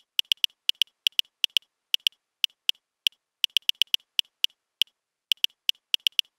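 Keyboard typing sound effect: single short key clicks, all alike and bright, about four or five a second at an uneven typing pace, with dead silence between them.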